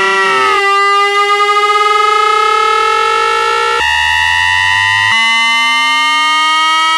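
Teisco 110-F analog synthesizer sounding a sustained, siren-like tone rich in overtones that slowly slides upward in pitch. Its timbre switches abruptly about half a second in, again near four seconds and again about five seconds in.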